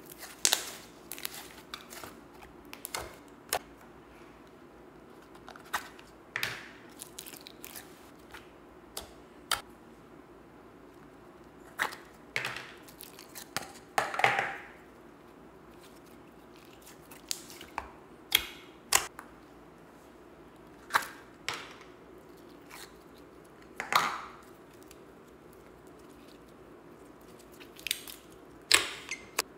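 Hands squeezing and kneading a tub of mixed slime: irregular wet squelches with sharp little pops and clicks, a few of them louder.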